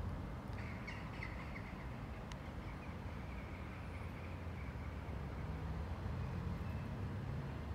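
Steady low rumble of distant motor vehicles. Over it, quick high chirps of a small bird start about half a second in and fade after a couple of seconds.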